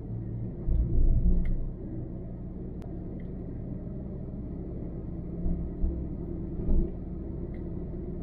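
Car driving along a road: a steady low rumble of road and engine noise, with a few louder low thumps about a second in and again between five and seven seconds.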